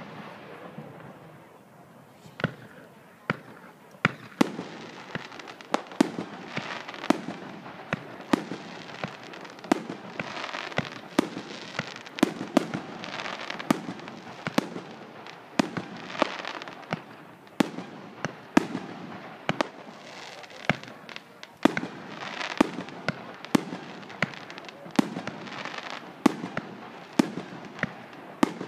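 Fireworks display: aerial shells bursting in a long run of sharp bangs, a few at first and then about one a second, over a steady noisy background between the bangs.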